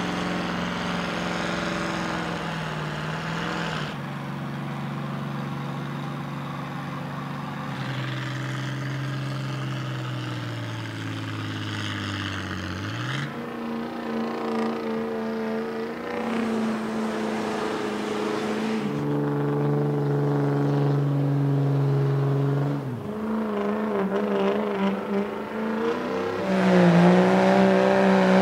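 Diesel pickup trucks and a farm tractor pulling a weight-transfer sled at full throttle, heard as a string of short clips. Each engine holds a steady pitch under heavy load. About 8 seconds in, one engine's pitch sinks slowly over several seconds as it loads down, and the loudest pull comes near the end.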